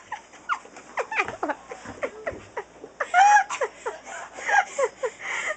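Girls laughing and giggling in short high-pitched peals, loudest from about three seconds in.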